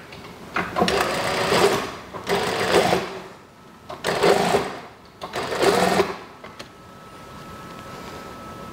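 Brother lockstitch sewing machine stitching along a fabric edge in four short runs of about a second each, stopping between runs. After the last run it falls to a faint steady hum with a thin whine.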